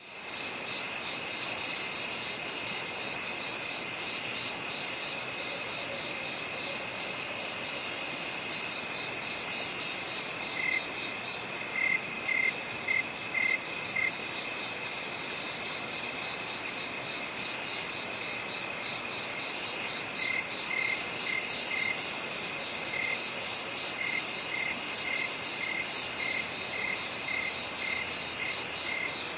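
A steady chorus of crickets and other insects trilling high, over an even hiss. From about ten seconds in, one insect chirps about twice a second; it pauses, then starts again later.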